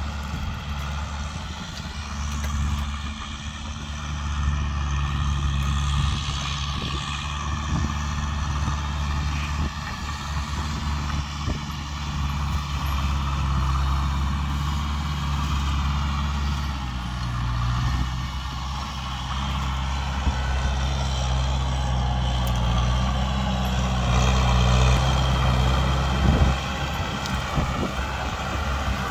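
Kubota tractor's diesel engine running steadily under load, pulling a rotary tiller through dry soil, its engine note dipping slightly about halfway and picking up again later.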